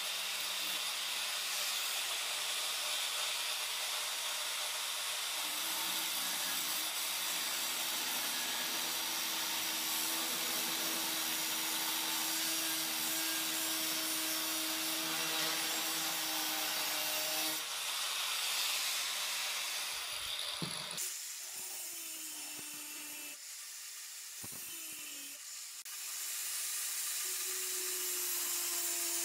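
Angle grinder with an abrasive disc grinding into 5/16-inch steel rebar: a steady, loud, hissing grind over the motor's whine. Past the middle the grind eases and breaks off briefly twice, the motor pitch sagging, then it picks up again near the end.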